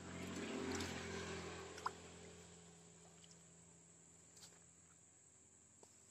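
Soft rustling from hands working at the bank, swelling and fading over the first two seconds, with one small click about two seconds in; after that only faint background with an occasional tiny tick.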